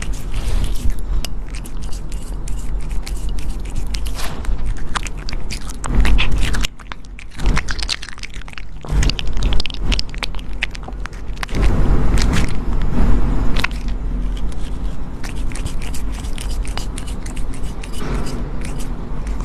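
A pet animal eating, with many quick, irregular crunching bites and chewing.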